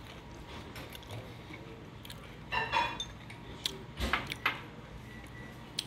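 Chopsticks and tableware clinking against plates, bowls and glasses at a dinner table: a few sharp taps in the second half, one more near the end.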